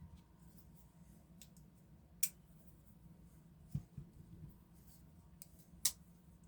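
A few faint, sharp clicks and taps of folding knives being handled, about two seconds in, twice near four seconds, and once near six seconds.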